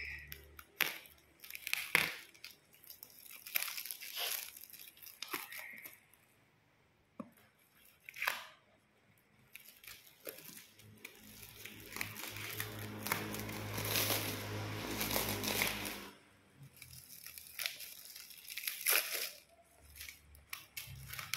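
Plastic shrink wrap on a cardboard box being snipped with scissors and torn and crinkled as it is pulled off, in a series of short rips and rustles. A longer stretch of steady rustling comes about two thirds in, with a low hum under it.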